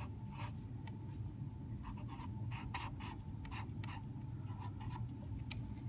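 Marker pen writing on paper: a quick, irregular run of short scratching strokes, over a steady low hum.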